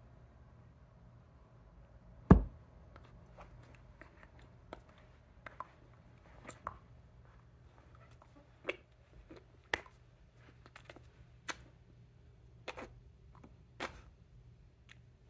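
Scattered soft taps and clicks from a signer's hands and body moving close to the recording device, with one loud thump about two seconds in, over a faint low hum.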